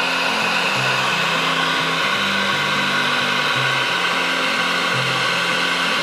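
Electric heat gun blowing steadily as it shrinks heat-shrink tubing over a wire join, with background music underneath.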